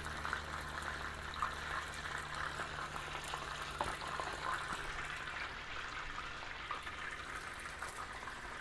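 Chicken drumsticks deep-frying in hot oil in a disco: a steady sizzle full of small pops and crackles. A low hum under it drops away about five seconds in.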